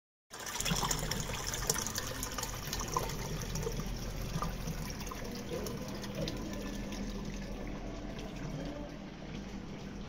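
Aquarium overflow water running and splashing down the tank's glass: a steady rush with many small drips, busiest in the first few seconds, over a low steady hum.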